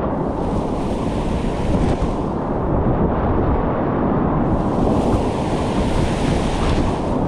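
Whitewater rapids rushing, heard through a GoPro's waterproof housing on a kayaker's life jacket: a loud, steady, muffled rush that turns brighter and hissier about halfway through.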